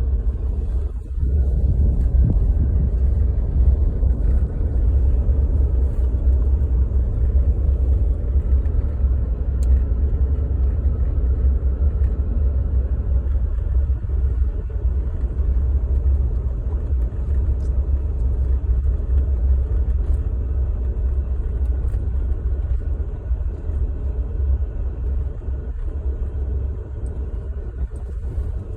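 Steady low road rumble and engine noise inside a moving vehicle's cabin as it drives along a park road.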